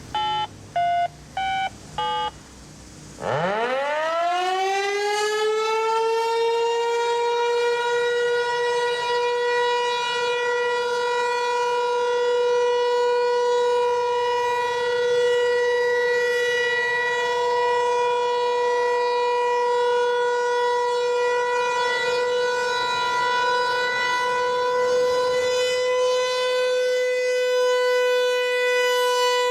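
Four short electronic beeps, then a Federal Signal Equinox outdoor warning siren winding up about three seconds in, its pitch rising and settling into one loud, steady tone for a monthly test.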